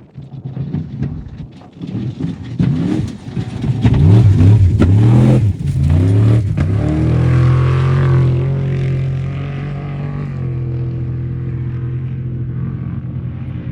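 Off-road race truck's engine revving hard in repeated rising-and-falling surges, with sharp cracks over the first few seconds. It then holds a steady high drone that settles to a lower steady note about ten seconds in.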